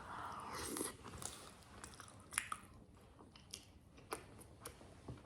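Close-miked chewing of soft, cheesy enchiladas, heard as faint, scattered wet mouth clicks and smacks, with a soft noisy mouth sound in the first second.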